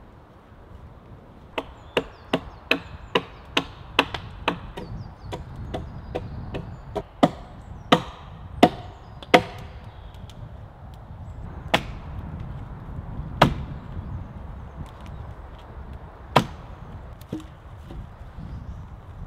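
Axe striking wood: a quick run of blows about two or three a second, then louder single strikes spaced a second or more apart.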